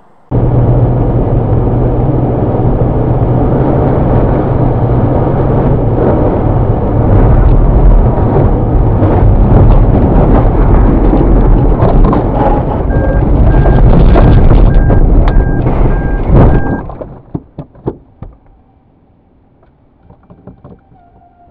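A car spinning out and sliding off the road into a ditch: a loud, continuous rumbling rush with an engine hum under it, which cuts off suddenly about seventeen seconds in and is followed by a few knocks. For a few seconds before the noise stops, a repeating electronic beep sounds about twice a second.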